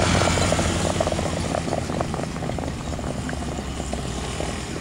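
A motorcycle engine runs steadily close by and fades as the race moves away. Over it comes a patter of sharp clicks from trotting horses' hooves and sulky wheels on a dirt track.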